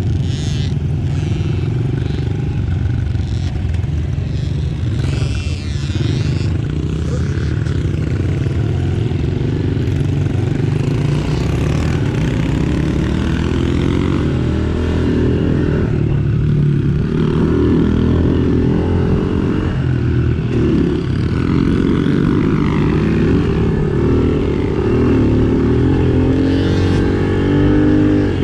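Small 110cc motorbike engine running continuously, its pitch rising and falling again and again as the throttle is opened and closed, more strongly in the second half.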